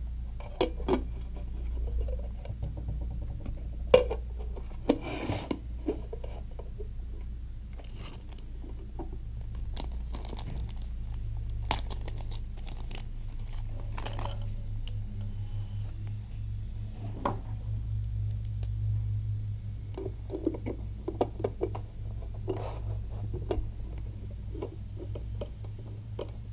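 Hand work on small parts: scattered clicks and knocks of parts and tools set against a plastic light housing, and the crinkle of a small plastic bag of screws being opened, over a steady low hum.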